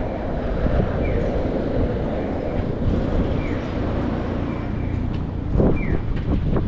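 Wind rumbling on the microphone over steady outdoor street noise, with faint short high chirps every couple of seconds and a couple of brief knocks near the end.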